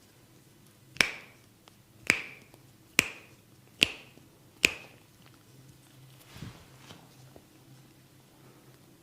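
A barber's fingers snapping during a head massage: five sharp snaps, a little under a second apart, then they stop.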